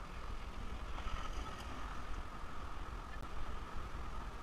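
Wind rumbling on the microphone over the steady hum of a fat bike's wide tyres rolling on asphalt.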